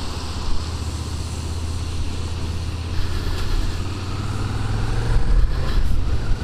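Suzuki SFV650 Gladius V-twin engine running steadily under way, heard through a helmet microphone, with wind and tyre hiss from the wet road; the engine gets louder after about five seconds.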